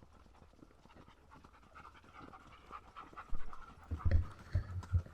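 An animal panting, with a string of irregular low thuds starting a little past halfway.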